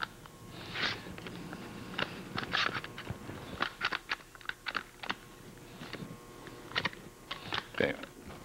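Quick-grip bar clamp clicking as its trigger is squeezed stroke by stroke, pressing a pen's point fitting into the wooden barrel until it bottoms out: a string of irregular sharp clicks.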